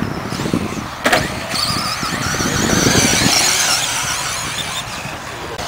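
Radio-controlled short course trucks racing: a high-pitched motor whine that wavers up and down with the throttle, with a sharp click about a second in.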